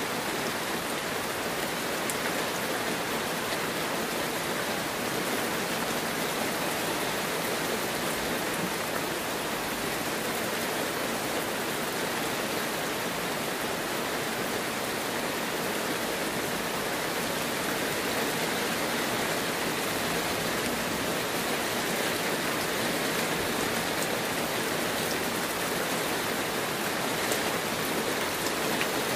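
Heavy rain falling steadily, an even hiss that holds at one level throughout.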